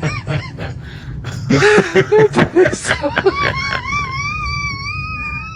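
Short bursts of laughter-like vocal sounds, then one long, high-pitched wavering call lasting about two seconds that cuts off suddenly at the end.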